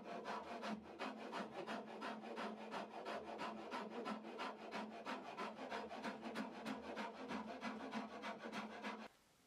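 Long round hand file rasping along the edge of a wooden guitar neck in quick, rhythmic back-and-forth strokes, several a second, to shape the neck. The strokes stop abruptly near the end.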